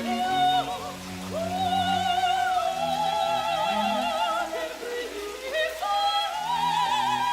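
Operatic-style music: a melody of long held notes with vibrato over lower sustained accompaniment notes.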